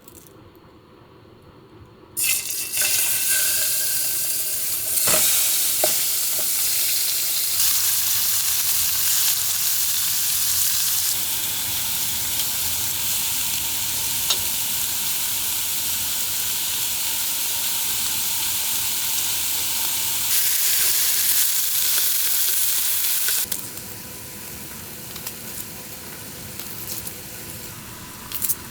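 Food sizzling in a hot pan. The sizzle starts suddenly about two seconds in, holds steady and loud, then drops to a quieter sizzle near the end.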